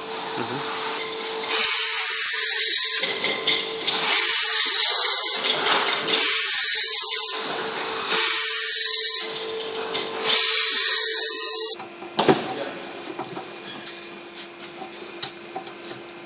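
Power tool grinding a gearbox part's surface: five bursts of high hissing, each about a second long and spaced about two seconds apart, over a steady machine hum. The hum stops about twelve seconds in and a lower one carries on.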